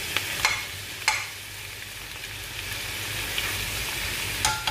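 Prawns with garlic and butter sizzling steadily in a pan while a metal spatula stirs them, with a few sharp scrapes in the first second or so. Just before the end, quick ringing metal knocks of the utensil against the pan begin.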